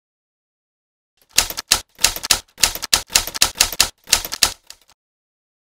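Typewriter sound effect: several quick runs of key strikes with short gaps between them, lasting about three and a half seconds.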